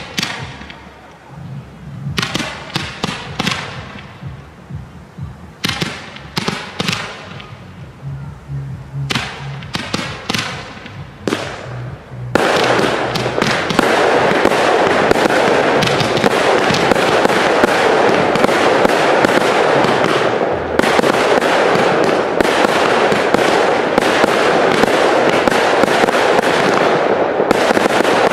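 Fireworks cakes firing: volleys of sharp shots in quick clusters with short pauses, then about twelve seconds in a sudden switch to a dense, unbroken barrage of reports that keeps on, easing only briefly near the end.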